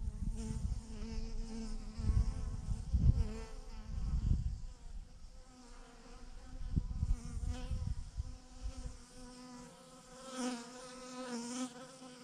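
Bees buzzing as they fly close around a large swarm cluster hanging on a branch: a hum that wavers in pitch and swells near the end. Bursts of low rumble run through the first two thirds.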